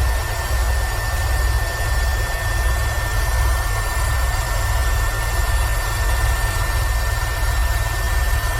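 Airbus H130 (EcoStar) helicopter in flight: a steady deep rotor throb under the rush of turbine noise, with a steady high-pitched whine.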